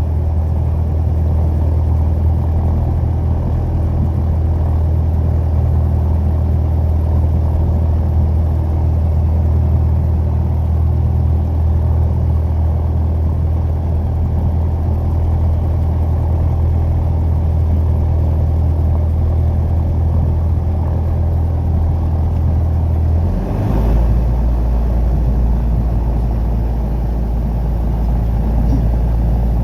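Piper PA-28 Warrior light aircraft's piston engine running steadily with a deep drone, dropping to a lower, deeper note about 23 seconds in.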